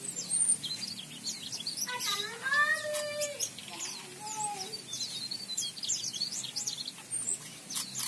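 Mugimaki flycatcher singing in an aviary: a busy run of short, high chirps and twitters. A lower, sliding sound comes in about two seconds in and lasts for over a second.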